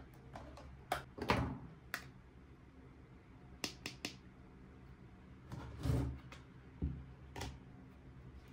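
Miniature toy kitchen pieces being handled and set down: a scattered series of light clicks and small knocks, a quick cluster of three clicks a little before the middle, and a couple of duller thuds.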